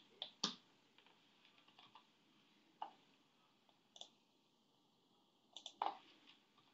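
Faint, scattered clicks of computer keyboard keys being typed: single keystrokes with pauses between them, and a quick run of three or four near the end.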